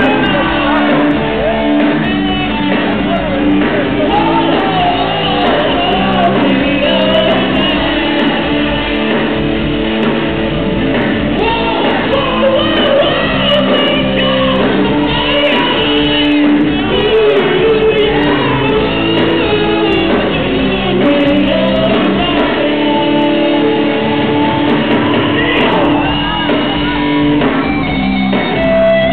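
Live rock band playing, with a lead vocalist singing and shouting over the band, in a large room.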